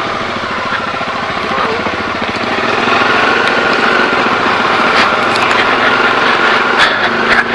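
Bajaj Dominar motorcycle's single-cylinder engine pulling up a steep hill road at low speed, getting louder about three seconds in as the bike picks up speed. A few sharp clicks come in the second half.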